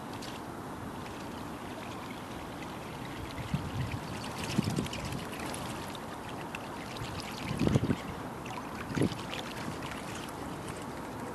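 Homemade buzzbait being retrieved across a pond's surface, its spinning blade churning and gurgling at the water, over a steady low hiss. Several louder splashes come from about a third of the way in.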